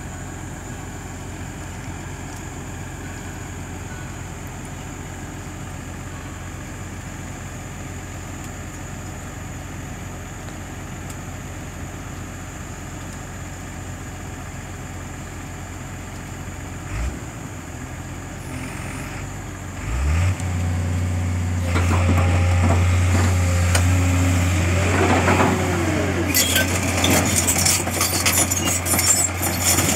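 JCB tracked excavator's diesel engine idling, then about two-thirds through its engine speed rises and it runs louder and steady as the machine starts working. Hydraulic whine rises and falls as the arm moves, and near the end there is clanking and rattling from the bucket over rock.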